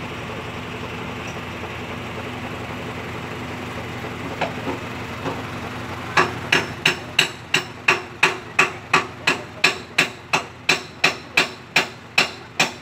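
A truck engine idles steadily. About six seconds in, a hammer starts striking the metal of a dump truck's body in an even run of sharp blows, about three a second.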